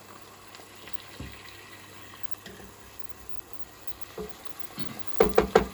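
Pan contents sizzling quietly, with a few light clicks. Near the end come three sharp, ringing knocks in quick succession against the cooking pan.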